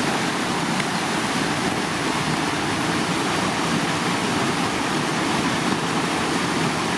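Whitewater of a standing river wave rushing steadily, an even, unbroken noise.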